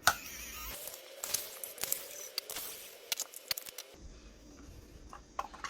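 Small sharp clicks, taps and scraping of hand tools on a plastic security-camera housing as its base screws are removed and the bottom cover is worked off.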